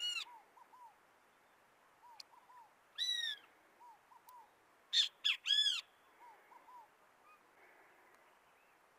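Birds calling: loud, arched calls that rise and fall, one at the start, one about three seconds in and three in quick succession about five seconds in. Softer short chirps in runs of three or four come between them.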